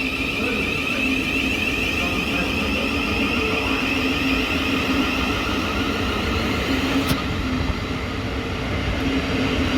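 Electric passenger train running through the station: a steady rumble with a high, steady whine. A sharp click comes about seven seconds in.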